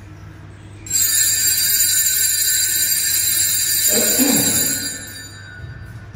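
Bright bell ringing of several high, steady tones starts suddenly about a second in, rings on, and fades away over the last second or so.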